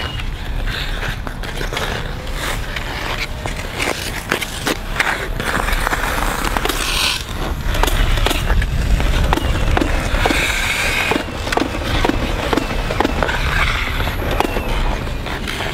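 Ice-skate blades scraping and carving on rink ice, with a string of sharp clicks and a steady low rumble of wind on the microphone.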